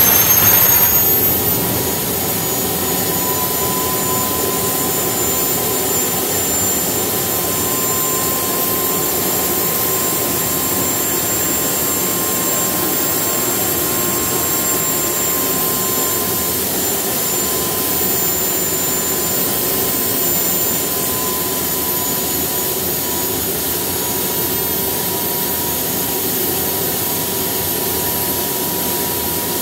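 DIY gas turbine jet engine running with a high whine over a steady rushing exhaust. The whine climbs in pitch over the first second, then holds steady.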